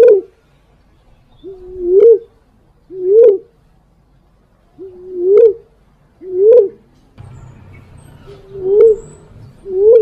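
Female walik fruit dove cooing as a recorded hunting lure call: short, low hooting coos, each a level note that rises at the end, repeated in pairs about a second apart with longer gaps between pairs. A faint hiss comes in about seven seconds in.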